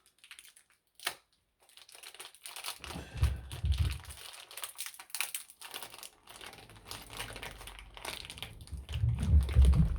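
Parcel packaging crinkling and rustling as items are rummaged out of the box, with a sharp click about a second in and small clattering handling noises. Dull low thumps come around three seconds in and again near the end.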